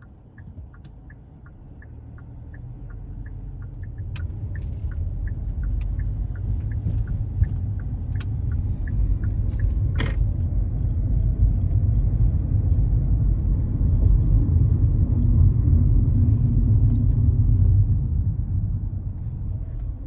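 Inside a car's cabin: road and engine rumble growing steadily louder as the car gathers speed onto the highway. For the first nine seconds a turn-signal indicator ticks about three times a second, and there is one sharp click about ten seconds in.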